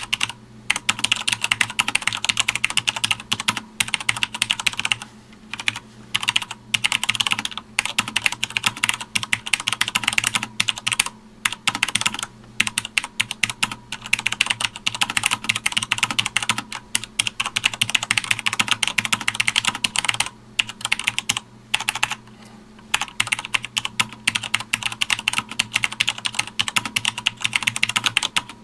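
Fast, continuous touch-typing on a Sanwa Supply SKB-MK2BK mechanical keyboard: rapid key clicks in runs, broken by short pauses every few seconds, over a faint steady hum.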